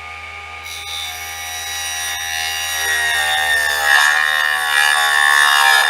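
Mini hobby table saw running with a newly fitted tungsten carbide tipped blade, sawing through a piece of balsa. The motor's steady whine carries on underneath while the cutting noise grows louder over the second half. The blade goes through with little resistance, cutting smoothly.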